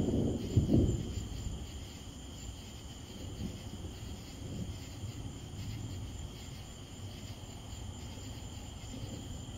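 Steady chorus of night insects, crickets, making a continuous high trill. A short, loud low rumble comes in the first second.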